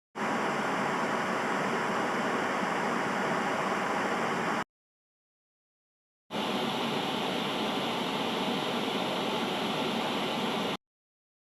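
TV no-signal static: an even white-noise hiss that switches on abruptly, cuts off after about four and a half seconds, and returns two seconds later for another four and a half seconds before cutting off again.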